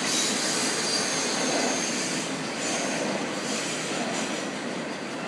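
Intermodal freight train passing, its cars loaded with truck trailers: a steady noise of steel wheels running on the rails, easing off slightly, with a faint high wheel squeal.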